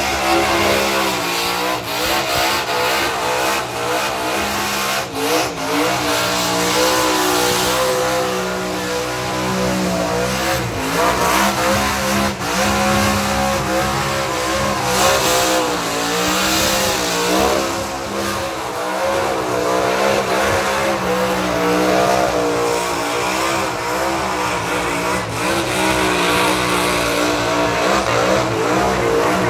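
A burnout car's engine held at high revs, its pitch wavering up and down as the throttle is worked, over the continuous screech of spinning rear tyres.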